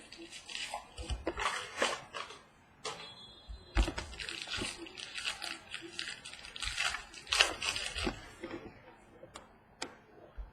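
Crinkling and rustling of packaging and trading cards being handled as a mini box of baseball cards is opened and the cards are pulled out, with a few sharp clicks and taps.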